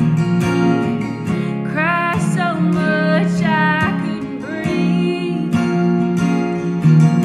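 Acoustic guitars strummed in a steady rhythm, with a woman singing a melody over them through the middle of the stretch.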